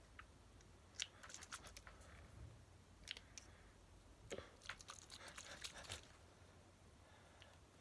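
Faint clicks and crackles of a small perfume package being worked at by hand, coming in scattered clusters about one, three and five seconds in. The package is hard to open and has not yet given way.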